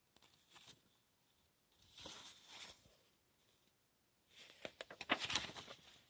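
Paper pages of a picture book rustling as they are handled and turned: soft brushes early on and around two seconds in, then a louder run of rustling and small clicks in the last second and a half as a page is turned over.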